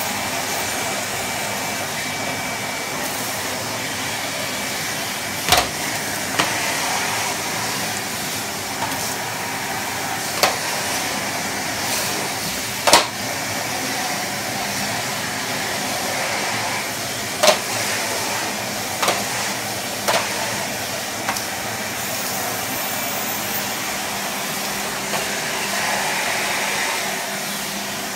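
Numatic Henry HVR200-22 vacuum cleaner running steadily while being used on the floor, with several sharp clicks and knocks scattered through.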